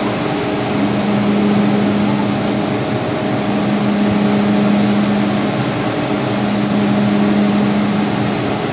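MTR M-Train electric multiple unit running, with a steady rush of wheel and running noise and a low hum that fades in and out every couple of seconds.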